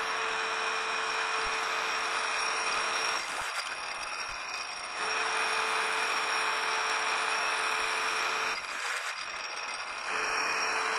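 Small metal lathe turning down metal stock: a steady hiss of cutting with a steady motor whine. The whine drops out twice for a moment, about three and nine seconds in.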